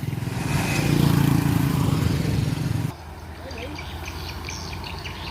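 Diesel engine of a Kubota DC93 rice combine harvester running close by, with a steady rumble that grows louder about half a second in. About three seconds in it drops abruptly to a quieter, steadier engine hum.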